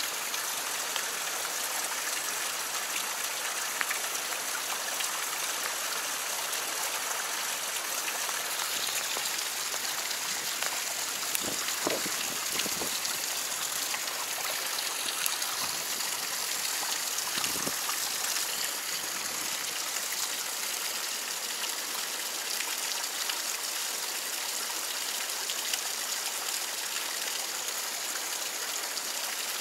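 Fast-flowing stream rushing over rocks, a steady hiss of running water. A few brief soft rustles come about halfway through.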